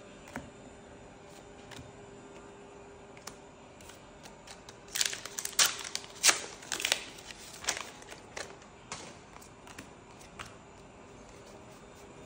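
Foil trading-card booster-pack wrapper torn open and crinkled: a quick run of sharp crackles over about three seconds, starting about five seconds in. Light clicks of cards being handled come before and after it.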